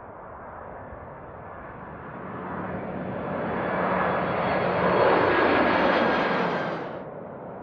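Boeing 767-300ER jet engines at approach power as the airliner comes in low overhead on final approach: a rushing engine noise with a steady low hum and a faint whine that swells to its loudest about five seconds in, then cuts off suddenly near the end.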